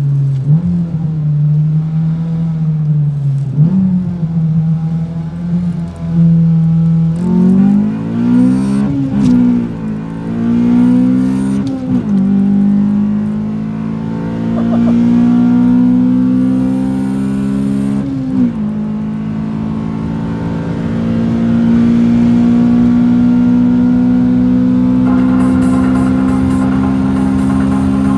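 Cabin sound of a 1999 Honda Civic Si's B16A2 1.6-litre DOHC VTEC four-cylinder, fitted with a short ram intake and aftermarket cat-back exhaust, pulling through the gears. Its pitch climbs and then drops at each of several upshifts, then holds a steady drone at cruising speed for the last third.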